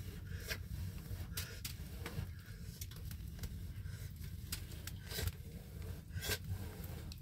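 Wood fire crackling in an earthen fireplace: irregular sharp pops and snaps over a low steady rumble.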